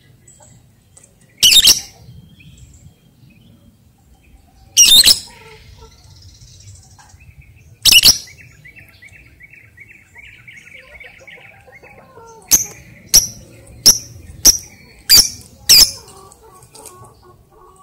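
Lovebird calling: loud, shrill single calls a few seconds apart, a faint fast chatter in between, then a quick run of six sharp calls about half a second apart near the end.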